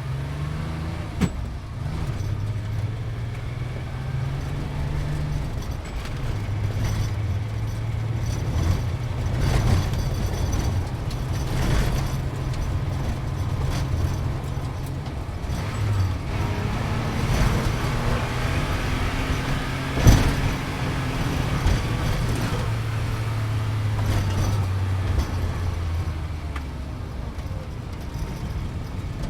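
Sports car engine running under way, its pitch jumping up and down in steps as it moves through the gears. There is a sharp knock about twenty seconds in.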